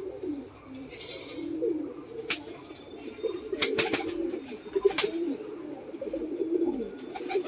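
Domestic pigeons cooing in a loft: a continuous run of low, wavering coos. A few sharp clicks come through in the middle.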